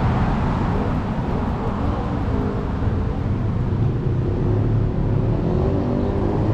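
Street traffic: vehicle engines running steadily, a continuous low rumble with faint engine tones.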